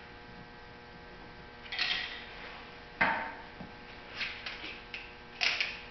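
Hand tools and car parts being handled at a car's wheel arch: a few separate knocks and rattles, with a sharp knock about three seconds in and a louder clatter near the end, over a faint steady electrical hum.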